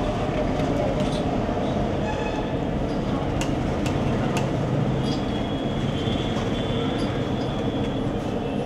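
Mirchi bajji frying in a kadai of hot oil: a steady sizzling, rushing noise with a low rumble under it, broken by a few sharp clicks and clinks of the metal slotted spoon.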